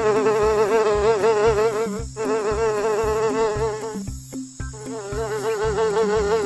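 A fly buzzing: one continuous buzz that wavers slightly in pitch, cutting out briefly about two seconds in and again around four seconds in. A soft low pulse runs underneath, about twice a second.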